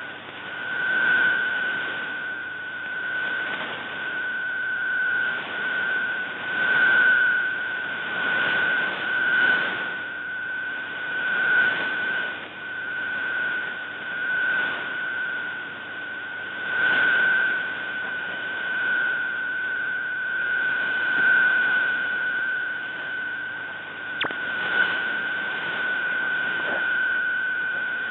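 Shortwave receiver audio of the Shortwave Radiogram digital-text broadcast on 9400 kHz: a steady data tone in the 8PSK125F mode over hissing static that swells and fades, with one sharp click a few seconds before the end. Much of it decodes as garbled text, a sign of weak, noisy reception.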